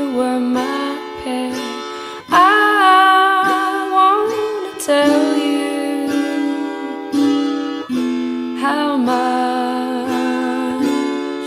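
Instrumental music led by a plucked acoustic guitar, notes struck about once a second, a few of them bending in pitch.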